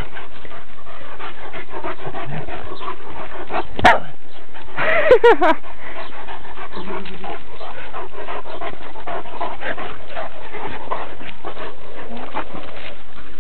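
Dogs playing rough together, panting and scuffling, with a sharp click about four seconds in and a short dog cry about a second later.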